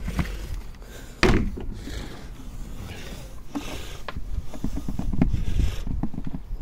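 Plastic compost bin lid and hatch being handled and opened: a sharp plastic knock about a second in, then smaller clicks and rattles, over a low rumble of wind on the microphone.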